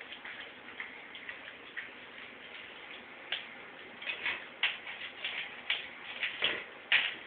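A pug licking peanut butter out of a jar lying on a tile floor: irregular clicks and taps from its tongue and the jar knocking and shifting on the tiles. The clicks come sharper and more often from about three seconds in, the loudest near the end.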